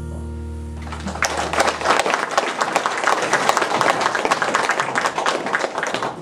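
The song's final held chord fades out, and about a second in an audience starts applauding, a dense steady clapping that tails off near the end.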